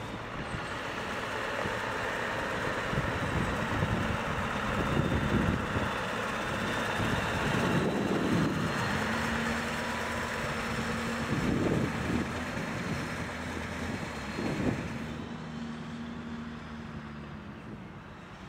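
Scania V8 diesel truck engine running as the loaded tipper drives off across gravel, its sound fading over the last few seconds as it moves away.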